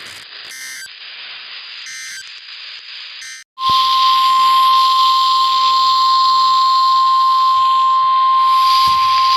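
NOAA Weather Radio alert sequence: static with three short warbling bursts of SAME digital header data, then, about three and a half seconds in, the steady single-pitch 1050 Hz warning alarm tone starts and holds, the signal that a new warning is about to be read.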